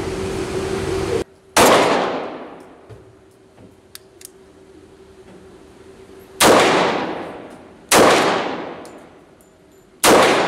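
Four shots from an HK USP .45 pistol, spaced unevenly: one about a second and a half in, two close together past the middle, and one near the end. Each crack rings out and decays slowly in the indoor range. A steady mechanical hum cuts off suddenly just before the first shot.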